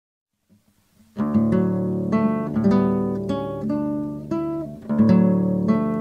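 Acoustic guitar music, a run of plucked notes and chords that starts sharply about a second in, after silence.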